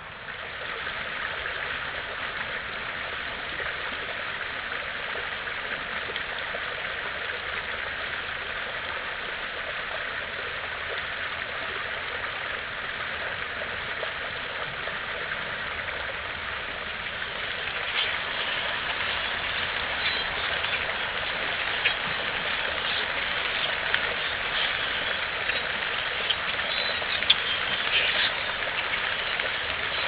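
Creek water running over rocks, a steady rushing. From a little past halfway it grows louder and sharp short clicks and chirps come through from a flock of grackles bathing in the shallows.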